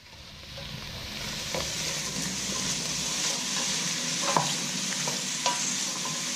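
Chopped onion, carrot, celery, garlic and green chilli sizzling in hot olive oil in a casserole dish as they sweat down, a steady hiss that fades in over the first second. A few light clicks break through it.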